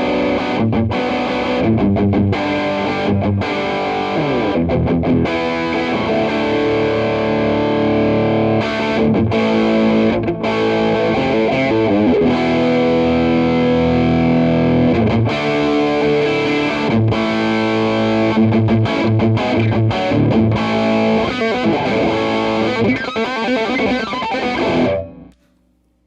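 Electric guitar played through a Donner Morpher mini distortion pedal on its natural setting: riffs and held chords with a gritty, dirty overdriven tone much like a cranked tube amp. The playing stops suddenly near the end.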